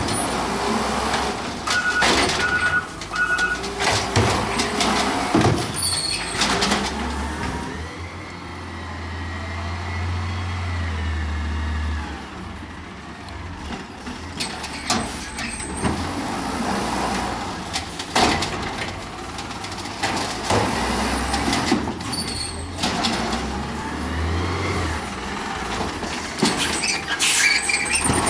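Natural-gas Peterbilt 320 automated side-loader garbage truck at work, with repeated bangs and knocks of carts and the arm, air-brake hisses and a run of four short beeps about two seconds in. Around eight to twelve seconds in, the engine revs up under a rising hydraulic whine as the arm cycles, and it revs again near the end as the truck moves on.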